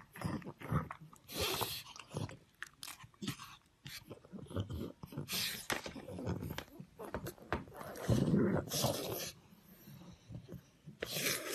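A pug chewing and mouthing a rubber chew toy close up, in irregular bursts of gnawing and clicking, loudest about eight seconds in.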